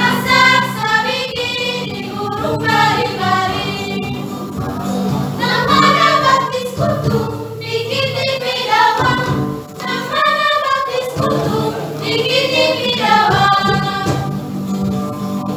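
A small choir of young women singing in harmony, several voices holding and moving between sustained notes, with short breaks between phrases.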